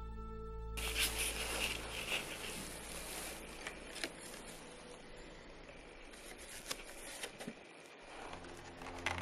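Paper rustling and light handling as old photographs and cards are picked up and shuffled by a gloved hand, with small taps and clicks. Music ends about a second in and comes back faintly near the end.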